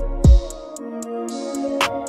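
Background electronic music with sustained tones and a crisp, regular beat. A deep bass hit slides down in pitch about a quarter second in, and then the low end drops out.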